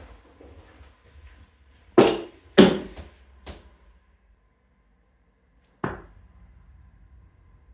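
Darts striking a bristle dartboard with sharp thuds: a loud pair about two seconds in, a softer one soon after, and another about six seconds in.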